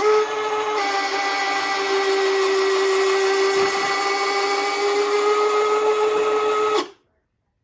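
Model jet's landing gear and gear doors running through their cycle: a steady motor whine that steps slightly lower in pitch about a second in, then cuts off abruptly near the end.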